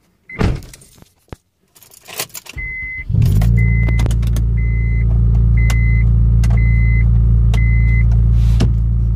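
Keys jangling and a few handling clicks, then a car engine starts about three seconds in and settles into a steady idle. A high warning chime from the car beeps about once a second, six times.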